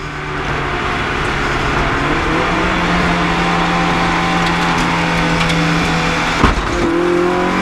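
Rally car's engine heard from inside the cabin under steady acceleration, its note slowly climbing. A brief thump comes about six and a half seconds in, and the engine then pulls on at a higher, still-rising note.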